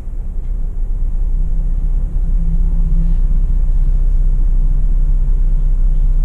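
A loud, steady low rumble that builds over the first second or two and then holds even.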